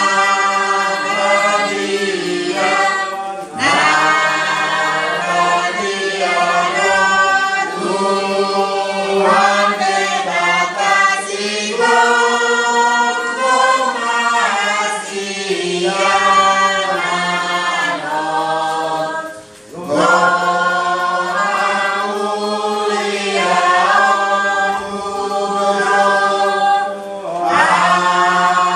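Congregation of men's and women's voices singing a hymn together in long phrases, with short breaks between phrases about three and a half seconds in and again about twenty seconds in.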